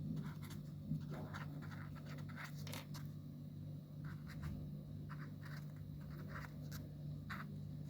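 Faint scratching with light ticks, as of a pen writing, over a steady low electrical hum.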